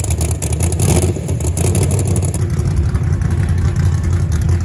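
A car engine running at idle: a loud, steady low rumble.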